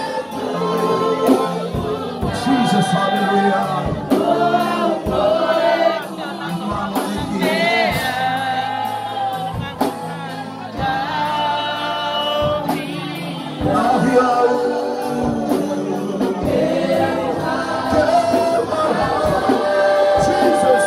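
A congregation singing a gospel worship song together, several voices at once, continuing without a break.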